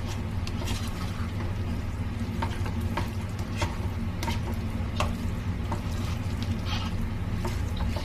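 A spatula stirring and scraping a thick batter of grated white radish and rice flour in a hot nonstick pan, with irregular short scrapes and sizzling as the mixture cooks, over a steady low hum.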